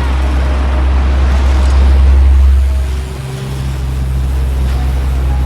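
Electric fan running: a steady low hum under an even whooshing noise, which dips a little and shifts in tone about three seconds in.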